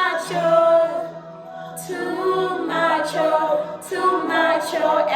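Background music: a love song with sung vocals.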